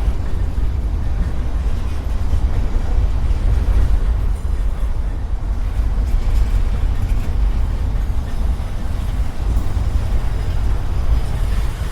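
Norfolk Southern mixed freight train rolling past, a steady low rumble.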